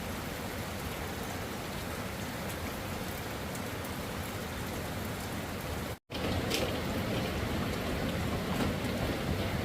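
Heavy rain falling as a steady hiss, cut by a brief dropout about six seconds in.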